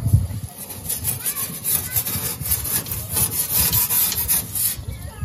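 Rapid rasping strokes of a kitchen utensil worked back and forth over a hard, crusty surface, about three strokes a second.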